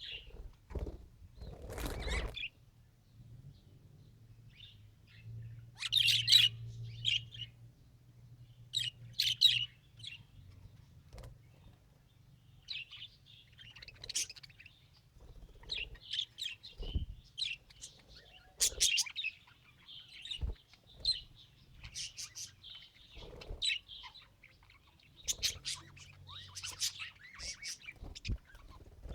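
Budgerigar chirping and warbling in short bursts, with occasional light knocks and rustles.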